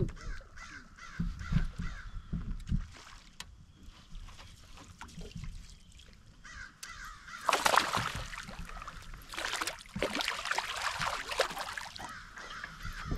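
Crows cawing repeatedly. The calls are faint in the first few seconds, with a few low knocks, and grow loud and harsh from about seven seconds in.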